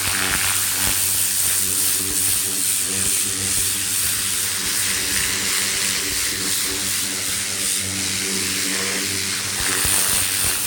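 Greenworks 1700 PSI electric pressure washer running steadily: a motor-and-pump hum under the hiss of the turbo nozzle's spinning jet spraying a fabric van seat.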